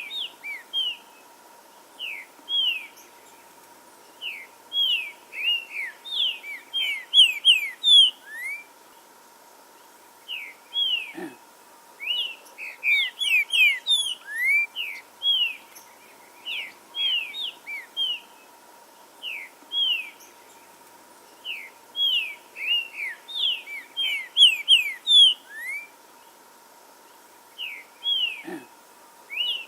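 Green-winged saltator (trinca-ferro) singing: phrases of quick, sweeping notes, each phrase a second or two long, repeated after short pauses.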